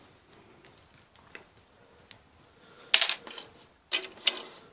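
Small plastic model-kit parts clicking and clacking as they are handled and set down. A mostly quiet stretch with faint ticks, then a cluster of sharp clicks about three seconds in and another about a second later.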